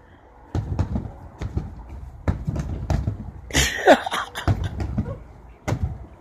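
Gloved punches thudding against a free-standing punching bag in a quick, irregular series of thumps, ending with a bare-foot kick. A brief cry about four seconds in.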